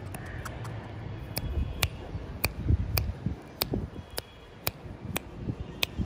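A series of sharp clicks, about two a second, starting a second or so in, over a low rumble.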